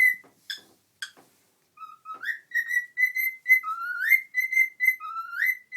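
Cockatiel whistling the same short phrase over and over, like a stuck record: a rising whistle followed by a few short clipped notes, repeated about every one and a half seconds. A few short chirps come before the first phrase.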